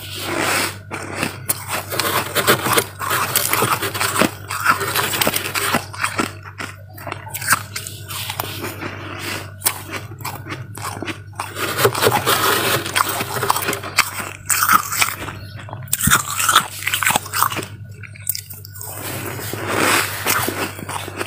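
Freezer frost crunching in quick, irregular runs of crisp crunches with short pauses between them, over a steady low hum.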